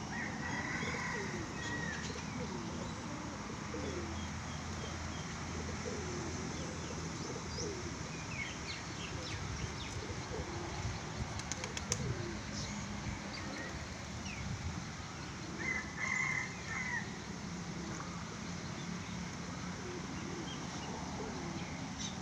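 Feral pigeons cooing, with a short flutter of wings about halfway through, over a steady background hum. Two brief, louder, higher-pitched calls come near the start and about three-quarters of the way in.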